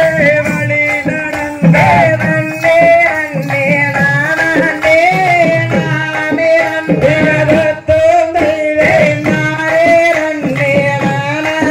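Tamil folk dance music for a Valli Kummi–style group dance: a sung melody that bends and slides, over a repeating hand-drum beat.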